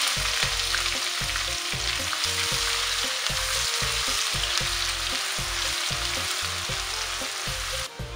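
Diced onion frying in hot oil in a nonstick wok, a loud, steady sizzle as it is stirred with a silicone spatula. The sizzle drops away suddenly near the end.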